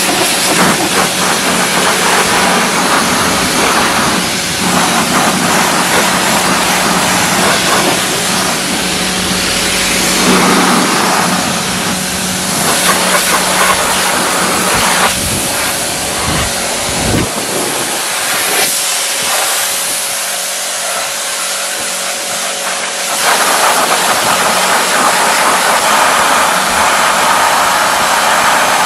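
Pressure washer spraying water onto a car's alloy wheel and tyre: a steady hiss of the jet over the hum of the washer's pump. The hum drops away for several seconds a little past the middle, and the spray comes back louder for the last few seconds.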